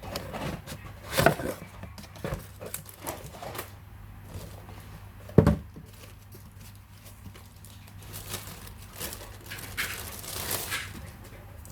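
Packaging being handled and unwrapped: crinkling and tearing with a few knocks, the loudest a sharp knock about five seconds in.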